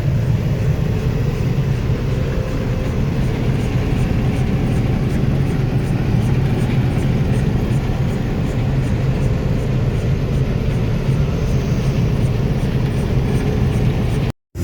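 Combine harvester running steadily under load, a constant low machine hum with no change in pitch, with a brief break just before the end.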